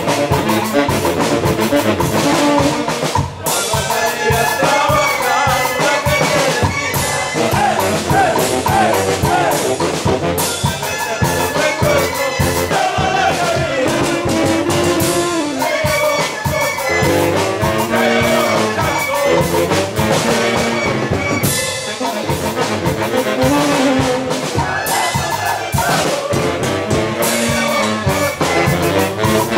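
Saxophone band playing lively dance music, with a man singing over the horns and a steady beat.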